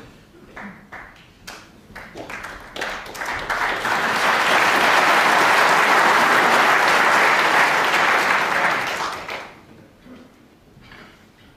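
Audience applauding: scattered claps build up over a few seconds into full applause, which then dies away.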